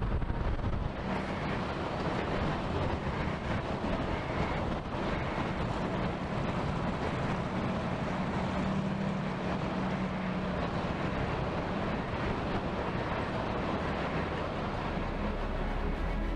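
Steady rumble of heavy vehicle traffic: a semi-truck hauling a shipping container drives past, its diesel engine hum strongest about halfway through.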